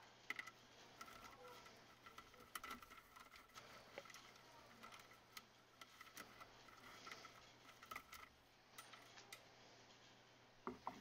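Near silence with faint, scattered clicks and ticks from hands working a small hand tool at close range.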